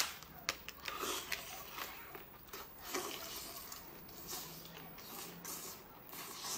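A person chewing freshly shelled lobster meat, with soft wet mouth sounds and a few faint clicks in the first second and a half.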